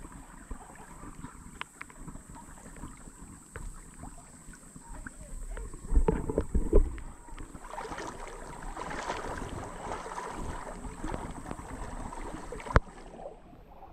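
Shallow river water rippling and running over gravel and rocks, fuller in the second half. A few loud low bumps about six seconds in, and one sharp click near the end.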